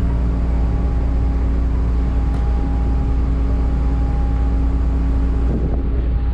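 Car ferry's engines running steadily under way, a deep continuous hum with a few steady tones above it and a wash of noise.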